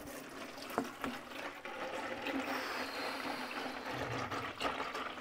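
Used engine oil from the first flushing cycle pouring and trickling steadily into a container, with a light knock about a second in.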